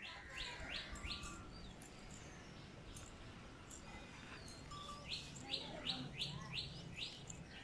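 A bird calling: two runs of quick, repeated chirps, about four near the start and about six more starting around five seconds in.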